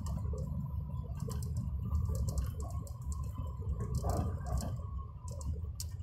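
Steady low rumble of a moving bus, heard inside the cabin, with irregular sharp clicks and rattles scattered through it.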